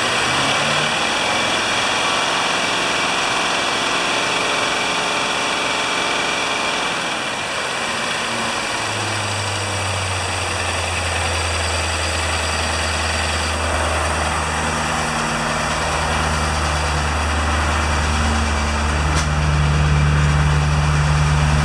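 BMW N62B44A 4.4-litre 32-valve V8 running steadily at raised revs, heard from the open engine bay, with slight shifts in its low hum and a little louder near the end.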